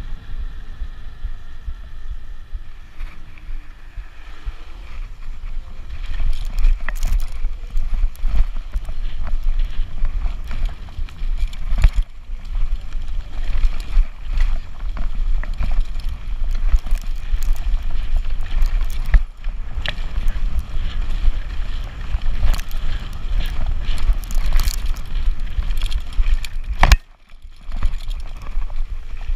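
E-bike ridden fast: at first a smoother hum with a steady motor whine on paved road, then, from about six seconds in, heavy wind rumble on the camera microphone and a stream of knocks and rattles as the bike jolts over a rough forest trail. Near the end there is a lull of about a second.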